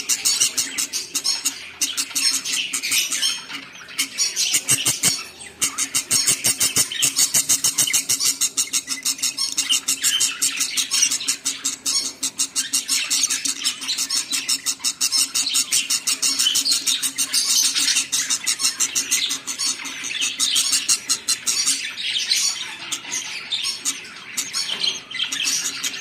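Budgerigars in a nest box with newly hatched chicks, chirping and squawking in a rapid, unbroken chatter. A steady low hum runs underneath.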